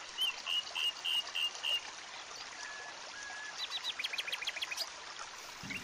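Forest stream running with a steady rush of water, with birds calling over it: a run of six short chirps in the first two seconds, then two short flat whistles, then a quick series of about ten sharp notes near the end.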